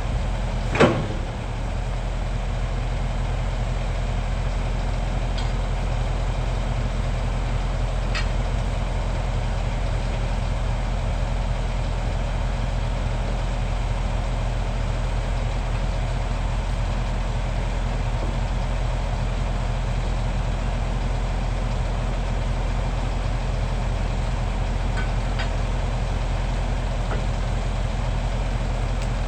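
Heavy excavator diesel engine idling steadily, with one sharp knock about a second in and a few faint ticks later.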